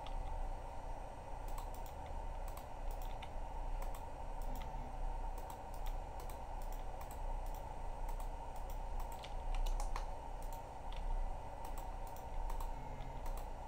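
Irregular clicks of a computer keyboard and mouse during editing work, over a steady low hum.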